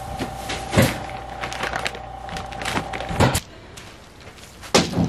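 Paper sacks and plastic bags rustling and knocking as they are handled and lifted out of a utility vehicle's cargo bed, with a few sharper knocks. A steady low hum runs underneath and cuts off about three and a half seconds in.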